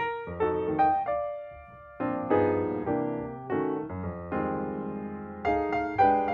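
Background piano music: notes and chords struck one after another and left to ring out.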